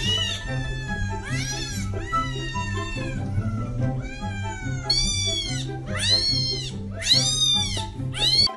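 Kittens meowing repeatedly, high arching meows about once a second, over background music.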